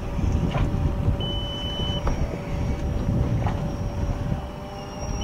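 DJI Phantom 4 Pro quadcopter flying overhead just after take-off, a faint steady propeller whine under heavy wind rumble on the microphone. A short high beep sounds about a second in.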